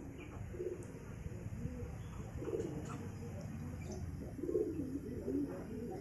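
Domestic fancy pigeons cooing in their loft: a string of low coos about a second apart.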